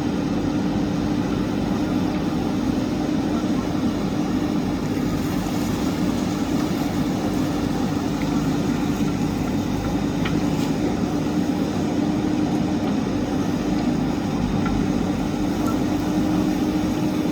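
JCB backhoe loader's diesel engine running at a steady speed: a constant drone with no change in revs.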